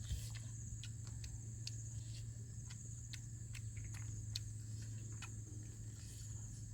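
A person eating: scattered soft clicks of chewing, one or two a second, over a steady low hum and a steady high-pitched drone.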